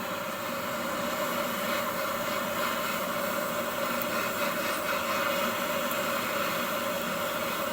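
Handheld gas torch flame burning with a steady rushing hiss, heating the leaking spot on a refrigerator's refrigerant tubing.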